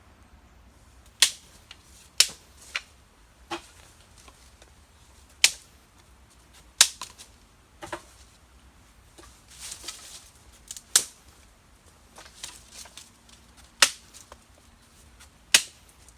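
Dry firewood sticks being snapped, a string of sharp cracks at irregular intervals, some close together in pairs.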